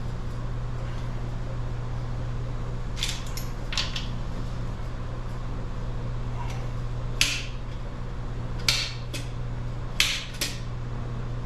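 Sharp metal clinks and taps of hand tools against the parts of an old engine block being torn down, about seven, coming closer together in the second half, over a steady low hum.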